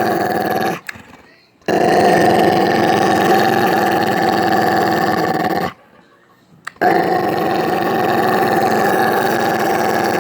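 Pet dog growling close up: three long unbroken growls, each stopping briefly for breath.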